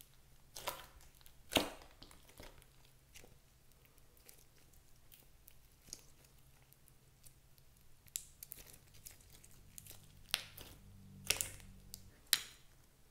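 Thick slime mixed with clay and makeup being squeezed and pulled by hand: irregular sticky squelches and crackling pops, with louder pops about a second and a half in and several near the end.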